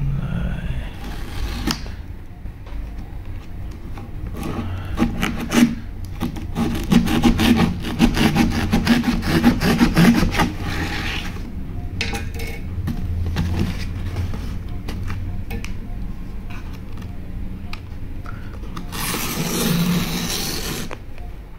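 A cardboard shipping box being cut open with a pointed tool, the tip scraping and tearing through the packing tape and cardboard. A fast run of scratchy strokes comes through the middle, and a louder tearing sound comes near the end.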